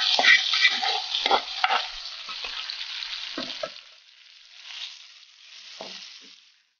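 Spiced mango pieces frying in hot oil in a clay pot, sizzling while a wooden spatula stirs them with short scrapes and knocks against the pot. The sizzle is loud at first and dies down after about four seconds to a faint hiss with a couple more knocks.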